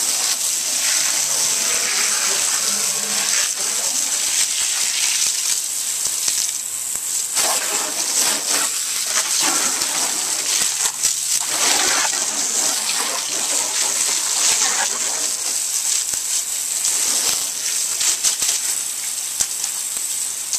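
A hard jet of water from a hose sprays against wooden fence boards and the dirt below them. It makes a continuous hissing spatter that swells and dips as the jet sweeps across different surfaces.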